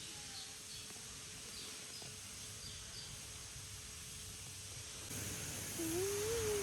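Steady outdoor ambience with a few faint, short, high bird chirps. About five seconds in the background gets louder, and near the end a wavering pitched sound begins.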